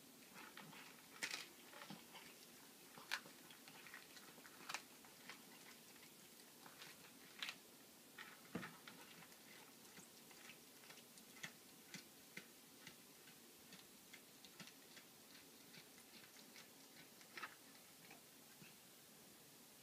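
A cat chewing, with quiet, irregular crisp crunches and a few louder cracks scattered through.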